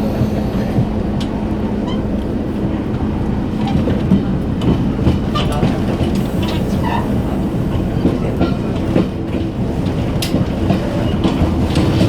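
Running noise inside a Jiji Line diesel multiple unit at the gangway between two ordinary cars: a steady low rumble of the wheels on the rails and the diesel engine's hum, with scattered short clicks and rattles.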